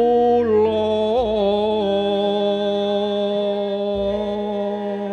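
Slow Javanese sung melody, the word 'kula' stretched over long held notes with a wavering pitch, over a low sustained instrumental accompaniment that begins afresh about a second in and again near the end.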